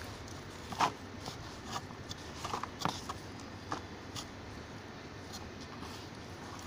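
Wooden stick stirring finished compost in a tub: scattered soft scrapes and crumbly rustles with a few sharper clicks, the clearest about a second in and near three seconds in.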